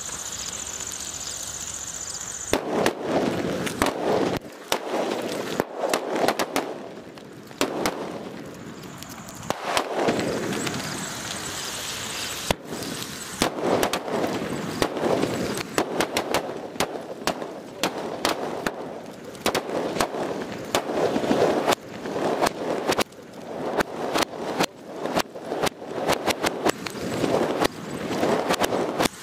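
A chain of mori firecrackers going off: the fuse end hisses and sputters with a thin high whine for about two and a half seconds, then the crackers burst in rapid, irregular bangs and crackling that continue to the end.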